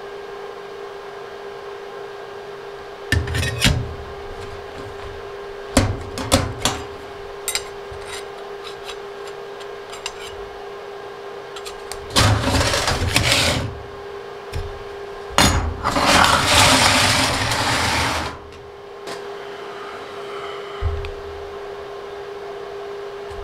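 Metal test pieces handled on a steel welding table: sheet and bar stock clinking and clanking, then longer scraping as pieces slide across the steel tabletop, twice, past the middle. A steady hum runs underneath.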